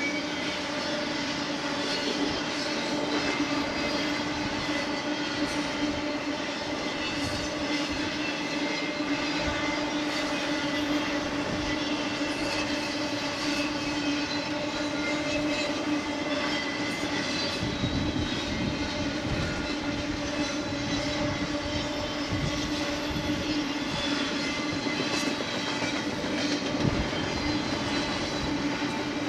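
BNSF double-stack intermodal freight cars rolling past: a steady rumble of steel wheels on rail with a steady drone underneath. Irregular clunks of wheels over the rail come more often in the second half.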